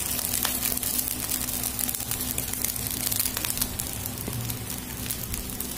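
Rice grains crackling and popping as they roast with masala and meat in a kadai, many small crackles over a steady low hum. The crackling is the sign the rice is roasted enough, ready for water to be added.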